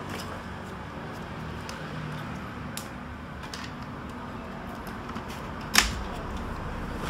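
Hands handling wiring and circuit boards inside an opened LED TV's plastic chassis: scattered light clicks and rustles of cables and plastic parts, with one sharper knock near the end.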